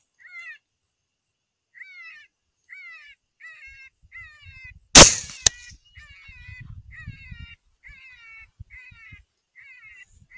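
Electronic predator call playing a rabbit distress sound: short high squealing cries repeating about every half second to second. About five seconds in, a single very loud shot from a 6.5 Grendel AR-15 rifle, followed half a second later by a second, shorter crack, with low wind rumble on the microphone.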